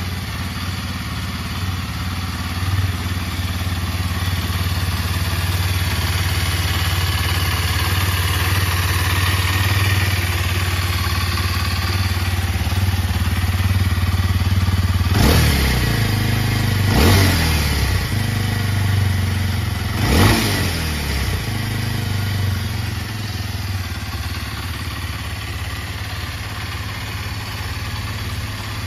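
Kawasaki KLX230SM's 233 cc air-cooled single-cylinder engine idling steadily. About midway it is blipped three times with quick throttle revs over a few seconds, the last the strongest, then it settles back to idle.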